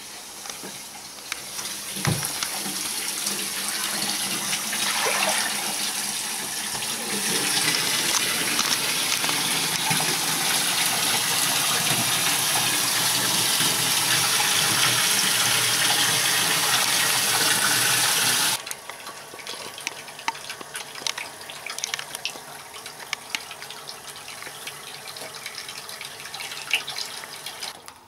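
Water running from a bathtub tap into a full tub. The steady rush starts about two seconds in, grows louder, and stops abruptly about two-thirds of the way through. After that come quieter sloshing and dripping of bathwater.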